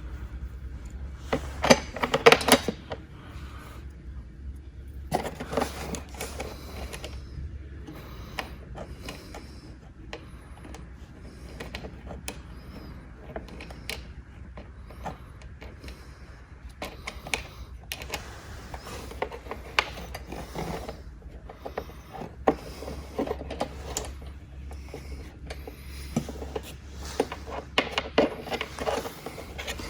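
Irregular clicks, taps and rattles of small metal bolts, nuts and an Allen key being handled and fitted loosely through an ATV's plastic body panel, over a steady low hum.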